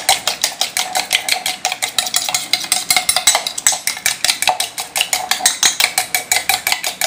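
Steel spoon beating eggs in a small stainless steel bowl, clinking against the sides in quick, even strokes, several a second, with the bowl ringing faintly.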